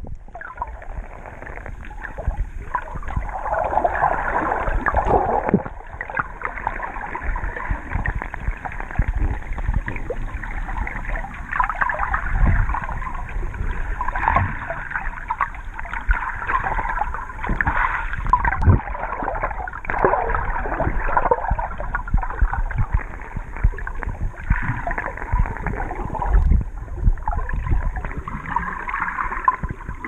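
Muffled underwater sound through a GoPro's waterproof housing held below the surface: water gurgling and sloshing, with occasional dull thumps.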